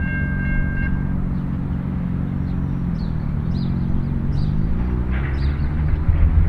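S-class diesel-electric locomotive's EMD two-stroke V16 engine running steadily as the freight train passes, with the locomotive's horn chord cutting off about a second in. A road vehicle's engine note dips and rises about three seconds in, and birds chirp over the top.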